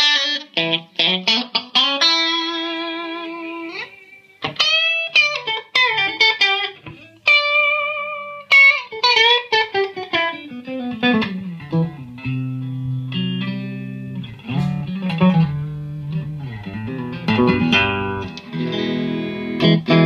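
Electric Stratocaster guitar played through the clean channel of a Yerasov Bulldozer EL34 50-watt valve amp head. It plays quick picked notes and a long note with vibrato, then bent notes, a long downward slide, and low chords in the second half.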